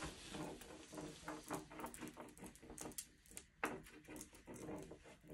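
Klister base grip wax being rubbed by hand into the kick zone of a cross-country ski: a run of faint, quick, squeaky rubbing strokes, with one sharper tap about three and a half seconds in.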